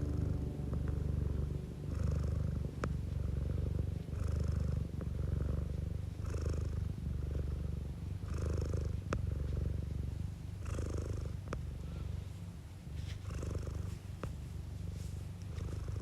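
Domestic cat purring close up: a steady low rumble that swells and eases every second or so as the cat breathes in and out, with a few soft clicks.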